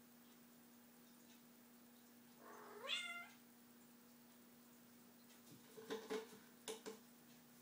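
A young tabby cat gives a single meow that rises in pitch, about three seconds in. A few soft knocks follow a few seconds later.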